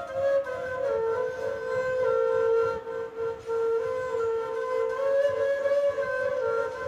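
Flute playing a melody of held notes that step up and down in pitch.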